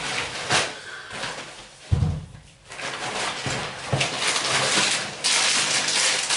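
Packaging rustling as items are pulled out of a bag and set down on a kitchen counter, with a few short knocks and a heavy dull thump about two seconds in.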